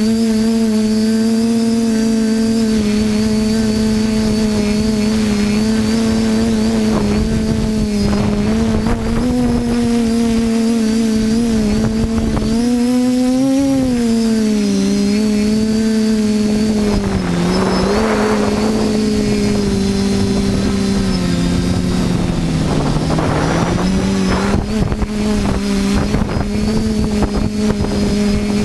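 TBS Discovery quadcopter's electric motors and propellers droning steadily, the pitch wavering as the throttle changes. The drone dips in pitch twice in the second half, each time with a short rush of air noise.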